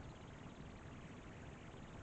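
Faint, steady background noise (room tone) with no distinct events.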